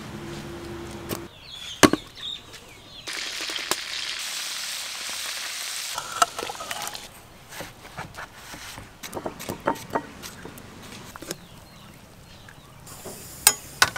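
Cooking sounds: a few seconds of hissing about three seconds in, then scattered light knocks of fish and utensils against a steel tray and pot, with another brief hiss near the end.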